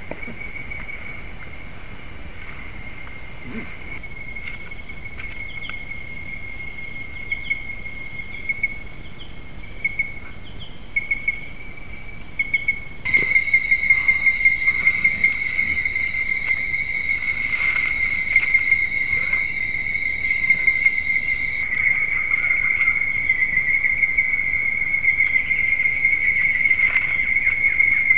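Chorus of night insects in tropical forest, crickets and katydids trilling steadily at a high pitch, with a few faint clicks. The chorus changes abruptly three times where separate camera-trap clips are joined.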